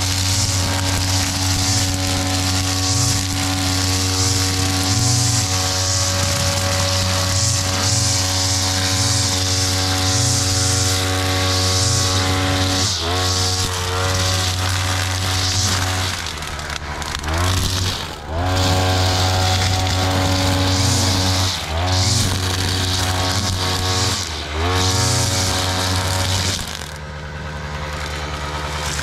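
Backpack brush cutter with a flexible drive shaft running at high revs while its cutting head trims grass, with a steady high hiss over the engine. Several times in the second half the engine drops off throttle, sagging in pitch and climbing back, and near the end it runs lower and quieter for a couple of seconds before revving up again.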